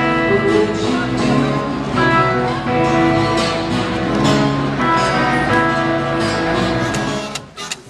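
Live band music with guitar, amplified from a stage, breaking off abruptly near the end.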